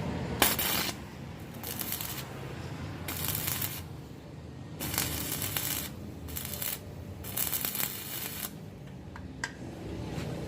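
Electric arc welding in about six short runs, each a second or less of crackling and sizzling from the arc, over a steady low hum.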